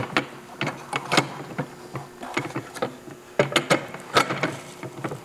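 Irregular clicks and knocks as a 32-inch floor sweep tool is handled and clicked into its mounting bracket on an industrial vacuum.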